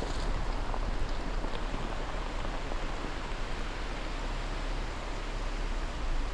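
Steady hiss of rain and washing lake water, with a low wind rumble on the microphone.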